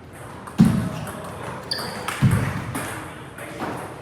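Table tennis play in a large hall: two loud knocks about a second and a half apart, with lighter ball clicks and a brief high squeak between them.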